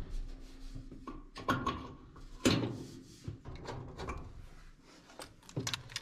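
Scattered light clicks and knocks of metal parts being handled inside a dryer cabinet, at the drive motor where the belt idler pulley and its tension spring are being fitted. The sharpest knock comes about two and a half seconds in, with a few more near the end.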